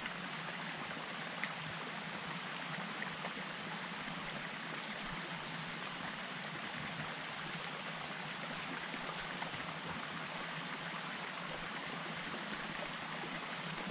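Small mountain stream running steadily, an even rush of flowing water.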